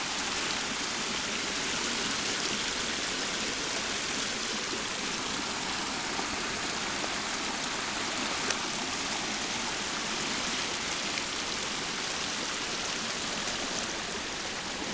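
Small woodland brook swollen by heavy rain, rushing steadily over its bed where it is normally just a trickle. One light knock about halfway through.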